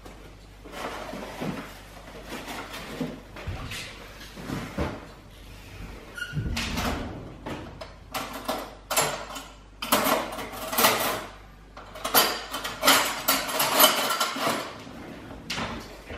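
Kitchen cutlery drawer pulled open and metal cutlery rattling and clinking in its tray as utensils are rummaged through and picked out: a run of sharp clatters, loudest and densest in the second half.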